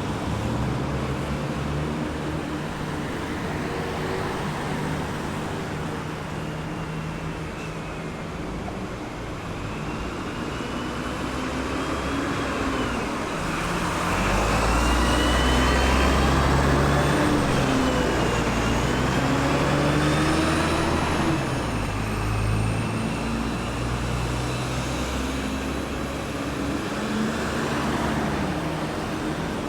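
Road traffic going round a roundabout: cars and heavier vehicles passing one after another, their engines rising and falling in pitch. A heavy vehicle with a deep rumble passes loudest about halfway through.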